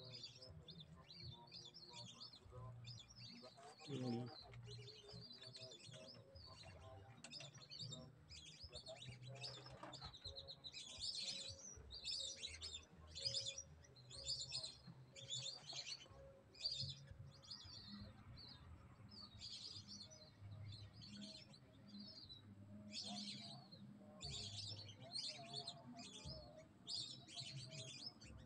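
Lesser whistling ducks (belibis) calling: many short, high whistled chirps repeating in quick clusters, faint.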